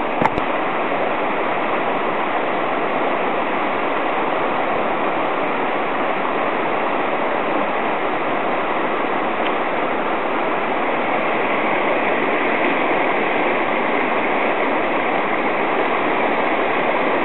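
Swollen mountain stream rushing with a steady, even wash of water.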